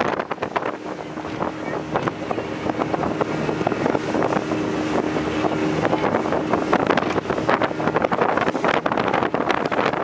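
Motorboat running fast over choppy water, its engine giving a steady drone under heavy wind rush and buffeting on the microphone.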